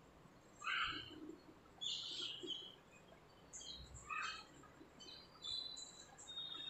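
Small birds chirping faintly in short, separate calls, several of them thin high whistles in the second half.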